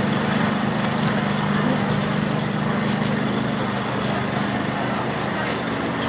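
An engine or motor running steadily with a low, even hum, over a constant outdoor noise.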